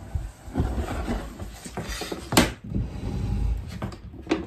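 Scraping, rubbing and bumping against a clear plastic kitten carrier, with a sharp click about two and a half seconds in and another near the end.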